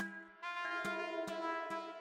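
Background music: sustained chords over a steady beat, with a short hit about every 0.4 seconds.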